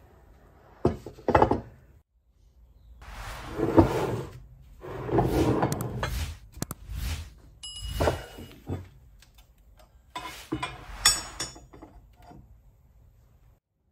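Cast Nordic gold plaque and other metal castings being set down, slid and moved about on a wooden workbench: a run of thunks, scrapes and clinks, some with a brief metallic ring, dying away near the end.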